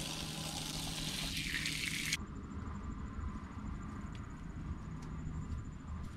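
Water running from an outdoor shower, a steady hiss that cuts off abruptly about two seconds in. Faint outdoor ambience follows, with a thin high pulsing tone.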